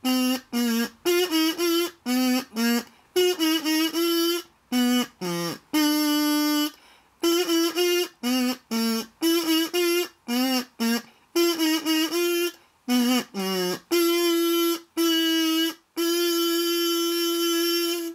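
A kazoo playing a solo melody: runs of short notes that move mostly between two pitches, broken by a few longer held notes. The last note is held for about two seconds near the end.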